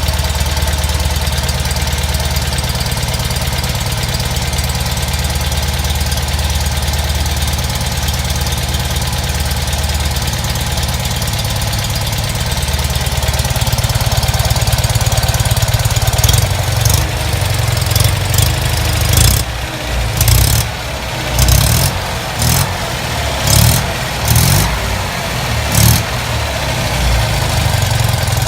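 Freshly rebuilt Fiat 126p 650 cc air-cooled two-cylinder engine idling steadily, then revved in a series of short throttle blips past the middle before settling back to idle near the end.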